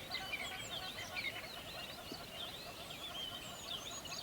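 Many birds chirping and singing at once, a dense morning chorus of short, quick calls overlapping without a break.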